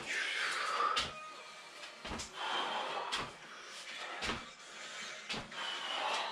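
Sneakered feet landing on a concrete floor during jumping lunges: a thump about once a second, six times, in an even rhythm.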